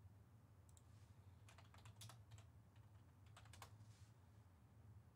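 Faint typing on a computer keyboard: a few short clusters of key clicks, with a low steady hum underneath.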